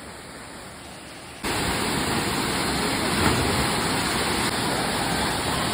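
Steady rushing of a waterfall, fainter at first and then abruptly much louder about one and a half seconds in.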